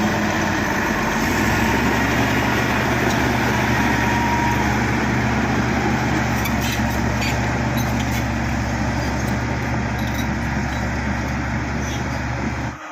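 Bulldozer's diesel engine running steadily under load, with a few sharp knocks about six to eight seconds in. The sound cuts off suddenly near the end.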